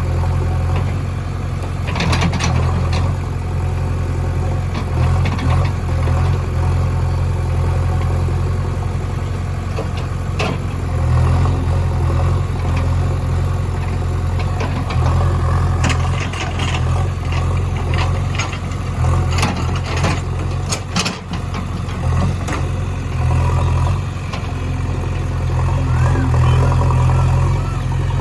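Heavy diesel engine running steadily at low revs, with scattered metallic knocks and clanks.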